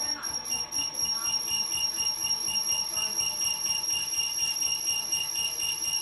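Electric honey extractor running, a steady high-pitched whine with a second tone pulsing about four times a second.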